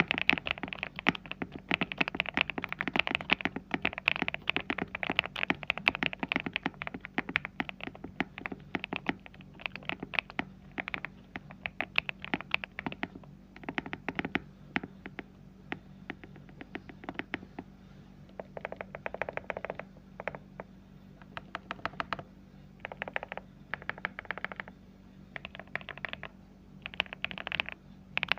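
Typing on a Monka 3067 mechanical keyboard with Bsun Cannelé switches and 1.7 mm PBT dye-sub keycaps: quick, continuous keystrokes for about the first half, then slower, broken runs of keypresses with short pauses between them.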